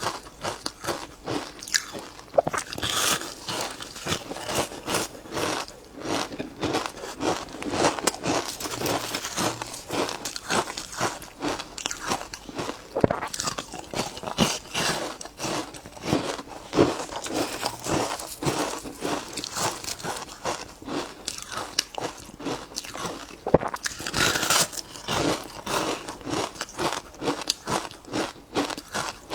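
Ice cubes being bitten and chewed close to the microphone: a continuous run of sharp crunches and crackles as the ice cracks between the teeth.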